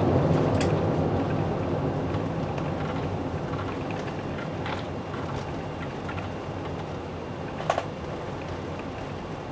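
Cabin noise of a Singapore Airlines Airbus A380 with Rolls-Royce Trent 900 engines slowing on its landing rollout: a low rumble of engines and wheels that fades steadily as the aircraft decelerates. A few light clicks and rattles in the cabin, the sharpest about three quarters of the way through.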